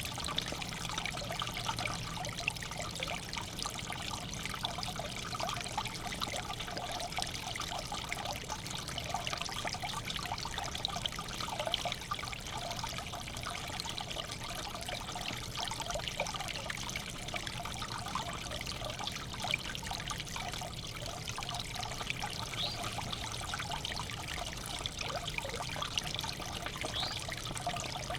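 Water trickling steadily in a backyard bird bath.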